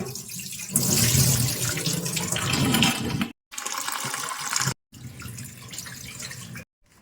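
Water running from a tap into a sink, in three stretches that stop abruptly; it is louder in the first stretch and softer in the last.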